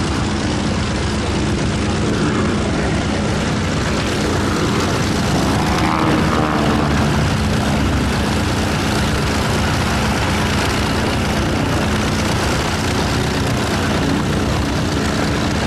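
Boeing Stearman biplane's Continental W-670 seven-cylinder radial engine and propeller droning steadily as it flies aerobatic manoeuvres.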